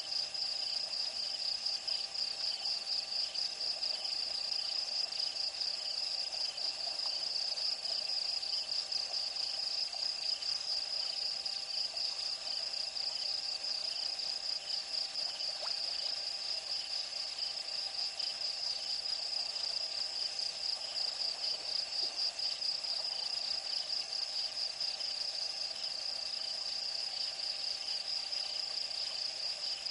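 Night insect chorus: a steady, high-pitched, rapidly pulsing trill that holds unchanged throughout.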